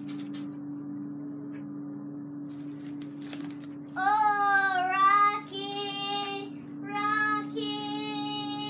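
A child singing a few long held notes, starting about four seconds in, over a steady low hum.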